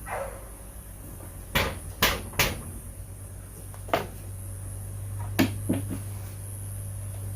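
Sharp clicks and knocks of parts and covers being handled on a Kohler Courage 17 hp mower engine during a tune-up. Three come close together about one and a half to two and a half seconds in, then more, spaced out, later on.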